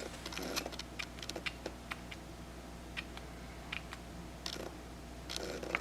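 Kailh mechanical keyboard switch in a 3D-printed clicker pressed and released over and over: a string of short, sharp clicks at an uneven pace, some in quick pairs.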